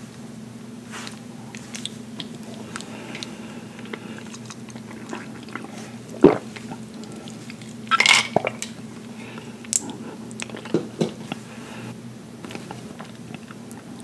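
A brief sip through a straw from a glass of iced drink, with ice clinking, about 8 seconds in. Around it are scattered small clicks and knocks of glass and utensils, one sharp knock a couple of seconds before the sip, all over a steady low hum.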